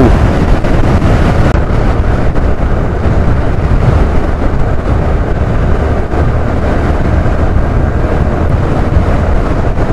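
Steady wind noise buffeting the microphone of a moving Suzuki scooter, with road and engine noise underneath.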